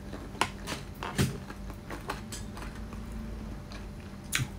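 A few scattered clicks and light knocks of small objects being handled close to the microphone, the loudest a little over a second in and another near the end.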